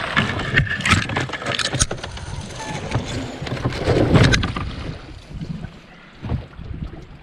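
Bare branches and twigs scraping and snapping against a drift boat's side as it is pushed through brush at the bank. About four seconds in comes a louder rush, then water washing along the hull.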